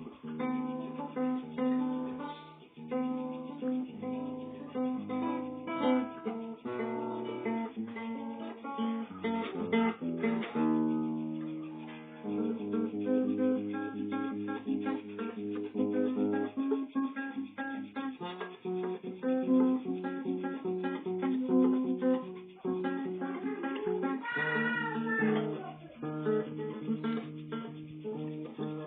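Acoustic guitar playing: plucked notes and strummed chords.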